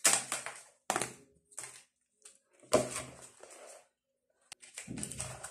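Crumbly cottage cheese being emptied from its plastic tub into a plastic mixing bowl and broken up by hand: four or five short bursts of plastic knocks and rustling curds, each starting sharply.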